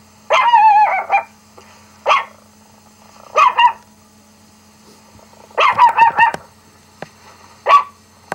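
A dog's high-pitched barks played through a laptop's speaker, coming in bursts: some are drawn out with a wavering pitch, and a quick cluster of barks comes about six seconds in.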